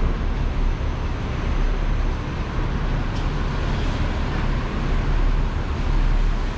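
Steady city street noise: a continuous low rumble and hiss of road traffic, with no single event standing out.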